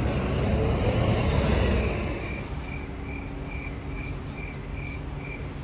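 Street traffic: a passing vehicle's low rumble swells over the first two seconds and then eases to a steady background hum. From about two seconds in, a short high beep repeats a little over twice a second.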